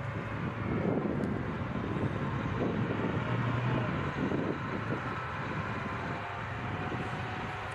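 Bradley fighting vehicle driving on its tracks: a steady low engine drone with track noise, growing louder about a second in and easing a little after the middle.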